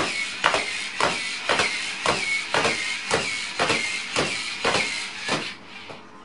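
Moving robot's mechanism clacking in a steady rhythm, about two clacks a second, over a continuous whirring hiss; it stops about five and a half seconds in.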